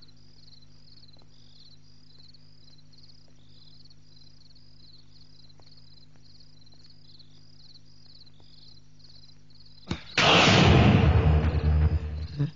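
Crickets chirping steadily in a quiet night ambience over a low hum. About ten seconds in, a sudden loud, noisy crash-and-rumble scare sound effect breaks in for about two seconds.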